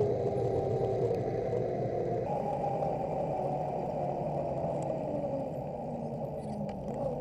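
Steady wind and road noise from riding a bicycle, picked up by an action camera mounted on the bike.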